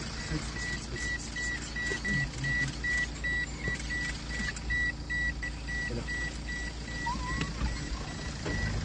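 Vehicle reversing alarm beeping: evenly spaced high beeps, about three a second, over a low rumble, with a short break near the end.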